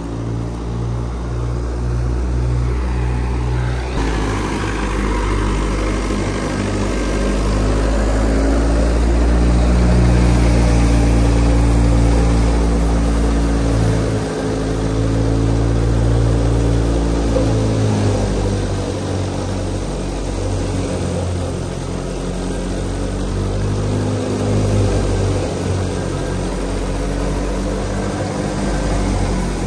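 Engine-driven wheat thresher running, a steady loud engine drone whose pitch drifts up and down slightly.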